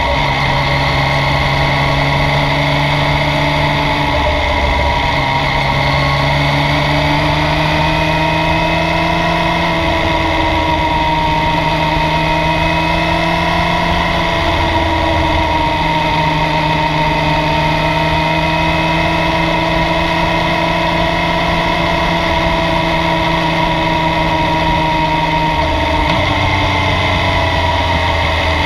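Yamaha Tracer 900's 847 cc inline-three engine running under way, its pitch swaying gently up and down with small throttle changes.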